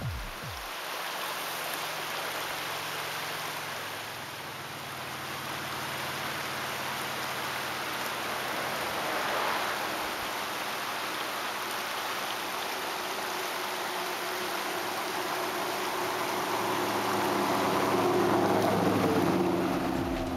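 Steady rush of wind and road noise on a riding motorcycle, with the engine's low drone underneath, growing a little louder near the end.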